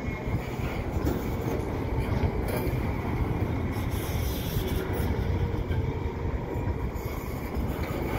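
Double-stack intermodal freight train being shoved slowly into yard storage tracks: a steady rumble of rail cars and wheels on the track.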